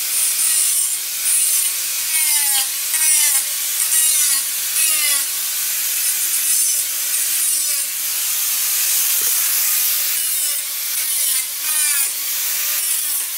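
Angle grinder cutting through the steel hog rings that fasten the upholstery to a car seat's metal frame, with a whine that falls in pitch again and again as the disc bites.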